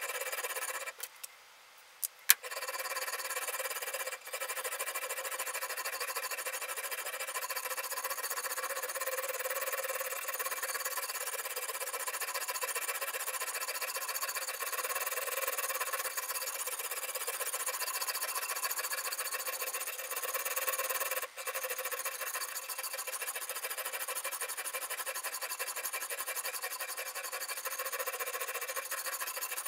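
Sharpening stone on a guided-rod knife sharpener rubbing along the edge of a Damascus steel chef's knife, a continuous rasping hiss. About a second in it stops for a second, and a sharp click follows as it resumes.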